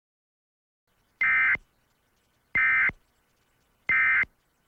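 Emergency Alert System end-of-message signal: three short bursts of two-tone digital data screech, a little over a second apart, marking the end of the alert.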